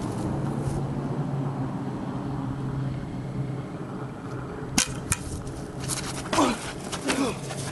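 Two sharp smacks of blows landing, about a third of a second apart, followed by short yells falling in pitch from the wrestlers as they grapple.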